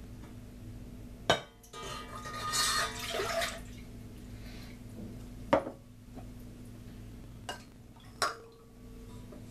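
Milk poured from a glass into a stainless steel saucepan, a splashing pour lasting about two seconds. Sharp knocks of glassware and a bowl against the pan and the counter come before and after it, over a steady low hum.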